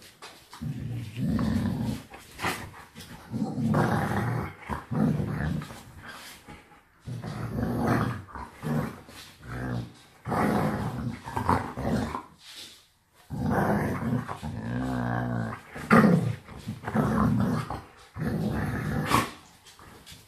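American Staffordshire Terrier and wolf growling in repeated bouts of a second or two, with short breaks between them, as they mouth at each other's heads and necks.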